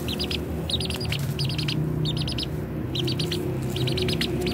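A small bird chirping in quick clusters of three to five short, high notes, repeated over and over, with low background music underneath.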